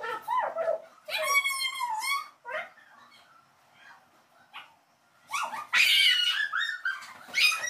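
A young child's high-pitched squeals and shrieks in short bursts, the loudest about five to six seconds in.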